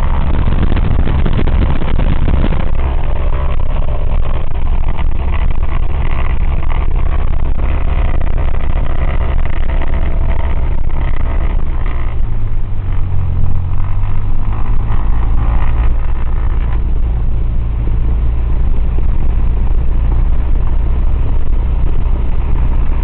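Cessna 172's piston engine running steadily at run-up power, its note shifting a few times as the magnetos are switched in turn during a magneto check.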